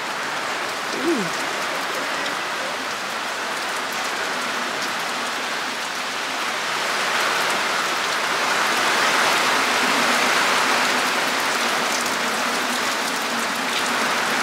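Steady downpour from a tropical storm's outer bands, rain hissing on the ground, roofs and leaves. It swells louder about halfway through.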